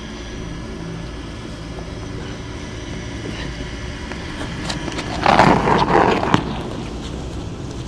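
Steady low rumble of an idling car. About five seconds in comes a burst of scraping and shuffling, with sharp clicks, lasting just over a second, as a limp body is dragged across asphalt.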